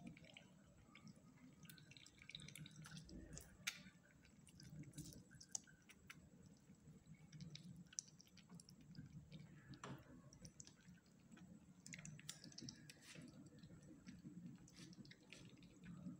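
Faint wet lapping and clicking of Indian palm squirrels drinking milk from a plate: small irregular licks and sips.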